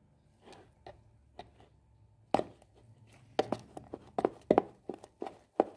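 Metal fork stirring runny oat pancake batter in a plastic jug, clicking and knocking against the jug's sides in quick, irregular strokes that start about two seconds in.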